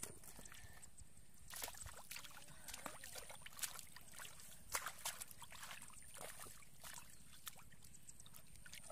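Hands scooping and groping in a shallow muddy puddle: small irregular splashes, sloshes and sucks of mud and water. A thin high whine comes and goes in the background.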